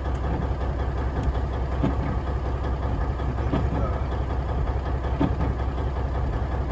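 Heavy truck's diesel engine idling steadily with a deep, even rumble; a few faint light knocks sound over it.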